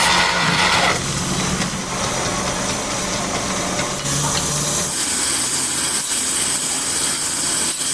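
A woodworking power tool running steadily with a motor hum, its sound shifting about a second in and again around four to five seconds in.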